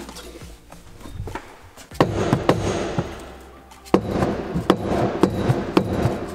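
Two loud bursts of rapid, clattering knocks, each starting sharply, about two and about four seconds in.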